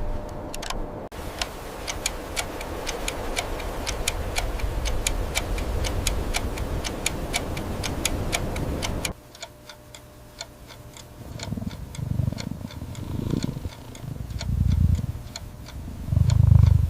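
Clock-like ticking sound effect, about three even ticks a second over a steady noisy background. About nine seconds in the background drops out and the ticking carries on more sparsely, joined by a few low thuds near the end.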